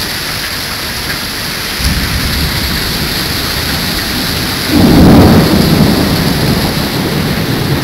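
Heavy rain and strong wind from a tornado's storm, a steady hiss under a low rumble. A loud low swell about five seconds in.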